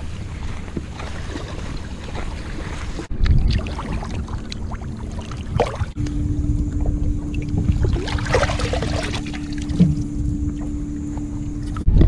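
Wind buffeting the microphone over water splashing and lapping, in several short outdoor clips cut together. A steady low hum comes in about halfway through and stops at a cut near the end.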